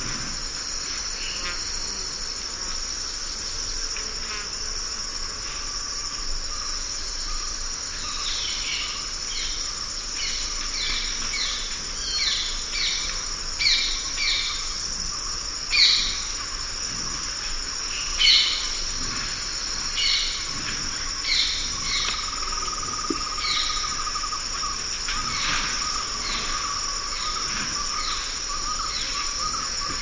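Many insects stridulating in a steady, high-pitched drone. Over it a bird gives short calls again and again, roughly a second apart, through the middle of the stretch. A steady lower tone joins about two-thirds of the way in.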